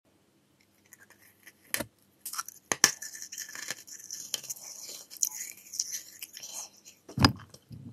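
Close-miked mouth sounds of eating a sugar-coated jelly marmalade bear candy on a stick: a few sharp wet clicks, then a busy stretch of wet nibbling and sucking, and a loud bite just after the seventh second.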